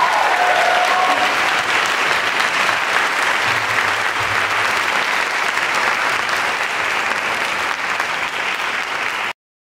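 Audience applauding steadily. The last held notes of voice and piano die away in the first second, and the applause cuts off abruptly near the end.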